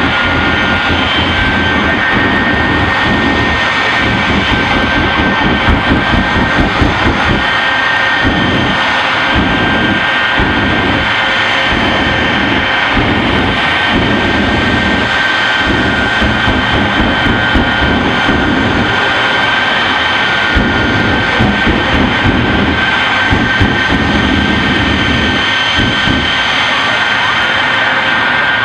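Jet engine noise running loud and steady, a dense rushing sound with several high, steady whining tones over it.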